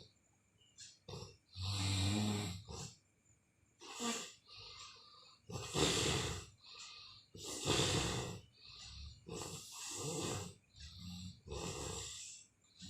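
Heavy snoring during sleep: long, noisy breaths in and out, repeating about every one to two seconds.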